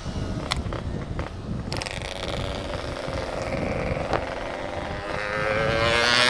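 Yamaha RX-King two-stroke motorcycle with an aftermarket 'setengah dewa' exhaust running on the move. About five seconds in the engine revs up, its note rising and growing louder.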